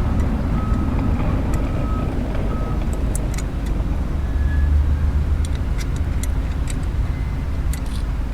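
Scattered sharp metal clicks and knocks as a motorcycle lift stand is reset a notch lower, over a steady low rumble.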